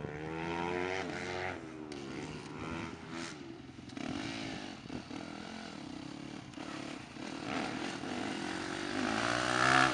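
Yamaha motocross bike engine revved several times while standing still, its pitch rising and falling with each blip of the throttle, then pulling away.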